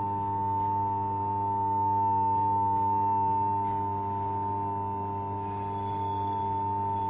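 High-pitched humming sound effect: one steady, piercing tone with a lower steady hum beneath it, holding without a break.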